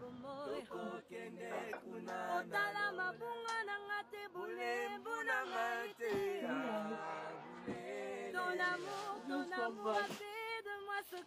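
Singing voice with little or no instrumental accompaniment, a melody that rises and falls throughout.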